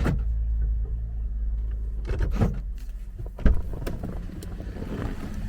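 Holden Commodore SV6's V6 engine idling with a steady low hum. A few knocks and thumps come over it, the loudest about three and a half seconds in.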